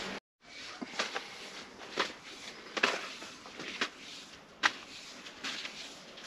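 Climbing rope being handled and pulled through the hands, with a soft rustle and a sharp click or knock about once a second.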